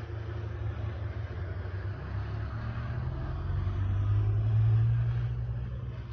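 Low rumble of a motor vehicle engine running nearby, growing louder about four to five seconds in and then easing off.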